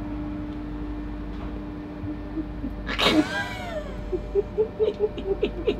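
A woman bursts into a high, squealing laugh about halfway through, falling in pitch. It breaks into quick, breathy bursts of laughter, several a second. A steady hum runs under the first half.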